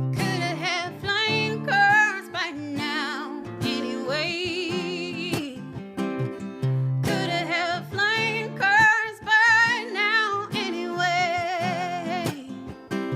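A woman singing long held notes with wide vibrato over strummed acoustic guitar.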